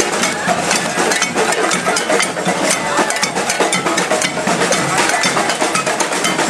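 Street protest march: a crowd's voices mixed with fast, continuous drumming and other hand percussion.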